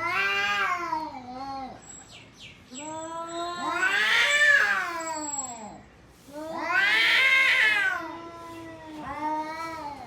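Domestic cat yowling: four long, drawn-out calls that rise and fall in pitch, the second and third the longest and loudest.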